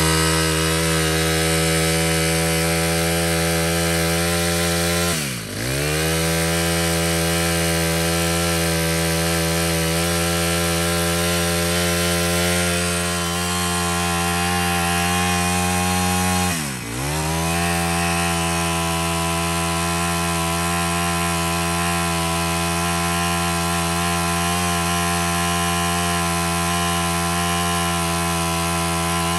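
Honda GS25 25cc four-stroke brush cutter engine running at high revs, steady, with the revs dropping sharply and coming straight back up twice, about five seconds in and again around seventeen seconds.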